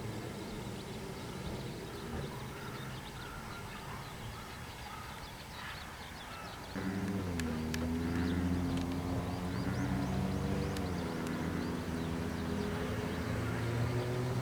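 Train noise, then a hum of several steady tones sets in suddenly about seven seconds in and drops in pitch twice, with faint bird chirps above it.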